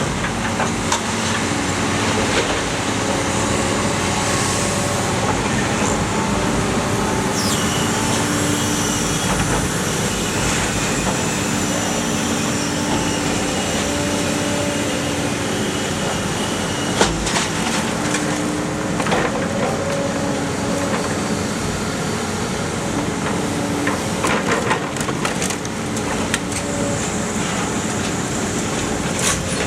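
Iron Pack scrap car baler in operation: a steady machine drone with scattered sharp metallic cracks and a high squeal, the loudest crack about 17 seconds in.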